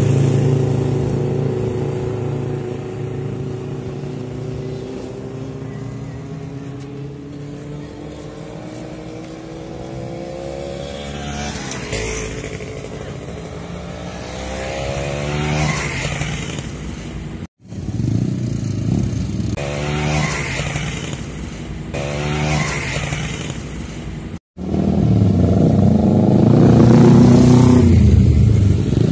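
Motorcycles riding past one after another, sport bikes and a trail bike among them, each engine rising in pitch and loudness as it comes and falling away as it goes. Several passes follow in turn, the loudest near the end, and the sound drops out briefly twice.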